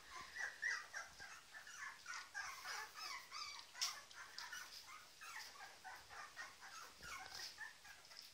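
Young puppies whimpering and squeaking, several crying at once in many short, high-pitched cries that overlap and keep up throughout. A single sharp click comes just before four seconds in.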